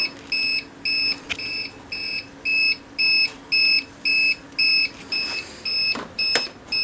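Electronic alarm beeping steadily, about two short high-pitched beeps a second, over a faint steady low hum.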